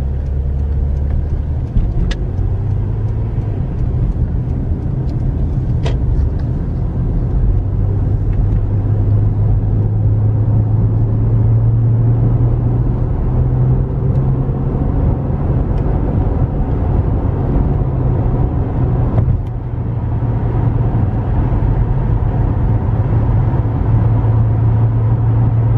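Car engine and tyre road noise heard from inside the cabin while driving. The low hum rises in pitch and gets a little louder as the car picks up speed onto the freeway, then holds steady at cruising speed.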